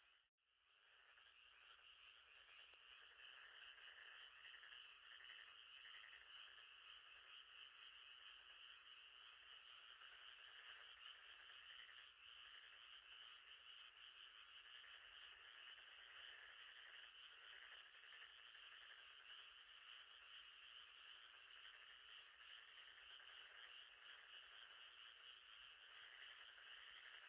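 Faint, steady night chorus of frogs trilling and calling together. It cuts out for a moment just after the start and fades back in.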